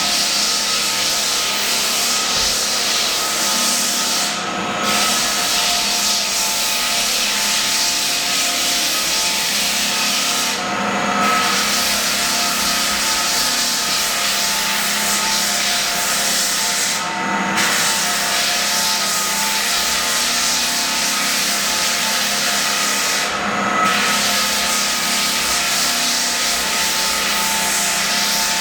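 Walk-behind belt floor sander running and sanding down an old heartwood pine floor: a loud, steady abrasive hiss over the motor's hum. The hiss briefly drops about every six seconds.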